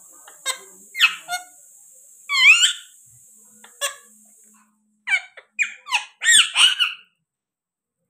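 Indian ringneck parakeet giving a series of short, sharp squawks that slide in pitch, the loudest about two and a half seconds in, then a quick run of squawks between about five and seven seconds.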